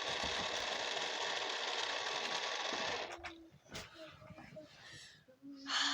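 Car starter motor cranking the engine for about three seconds without it catching, then cutting off suddenly. The car won't start.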